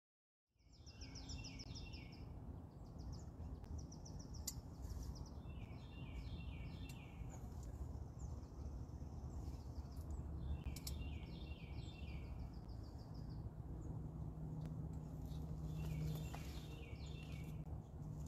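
A songbird singing a short phrase of several quick notes, repeated every two to four seconds, over a steady low outdoor rumble.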